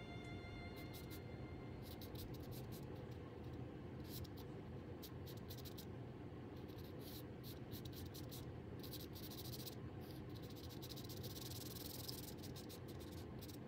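Charcoal scratching across paper in short, irregular strokes, heaviest in the second half.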